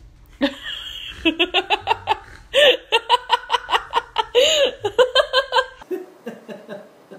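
A person laughing hard in rapid, repeated bursts that stop suddenly about a second before the end.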